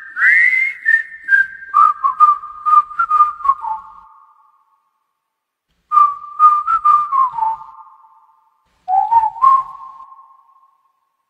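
A whistled melody in three short phrases, each one drifting down in pitch, with sharp clicks among the notes.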